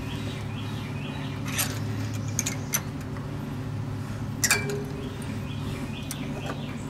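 Small metal clinks and clicks as a carburetor is worked loose and its thin steel throttle and choke linkage rods are unhooked, a few sharp ticks with the loudest about four and a half seconds in. A steady low hum runs underneath.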